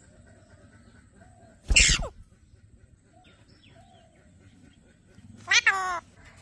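Birds calling over faint scattered chirps: one loud, harsh call about two seconds in, then a loud call with a wavering, stepped pitch near the end.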